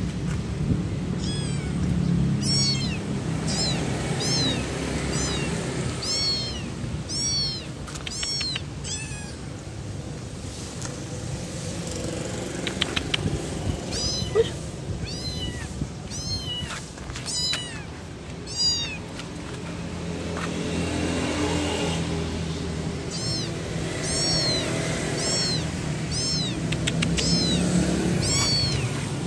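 Young kitten meowing over and over: short, high-pitched calls that rise and fall, in runs with a couple of brief pauses. A low steady hum runs underneath.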